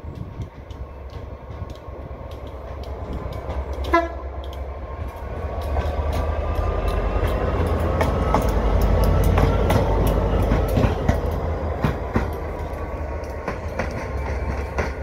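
Two light-engine locomotives, a Class 88 and a Class 67 diesel, passing: a short horn toot about four seconds in, then the engine noise grows loud as the Class 67 goes by, with the wheels clicking over rail joints, and eases off near the end.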